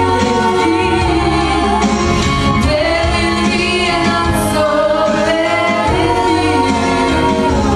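Female vocal trio singing in close harmony into handheld microphones, amplified over a PA, with a steady low accompaniment under the voices.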